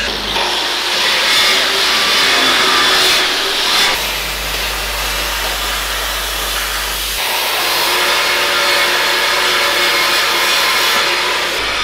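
Steel fabrication noise: an angle grinder working steel and a MIG welder crackling, in short segments that change abruptly about 4 and 7 seconds in.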